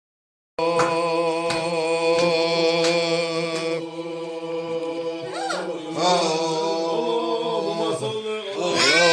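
Chant-like singing on long held notes, starting suddenly after a moment of silence and shifting to a higher, brighter note near the end.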